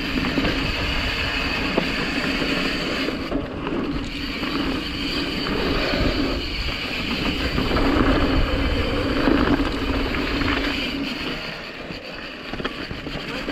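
Mountain bike rolling down a dirt trail: tyres running over the ground and the bike rattling, with wind noise on the camera microphone. The level swells and dips with the riding.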